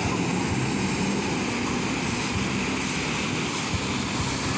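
Ocean waves breaking and washing up a sandy beach: a steady rushing noise with a low rumble underneath.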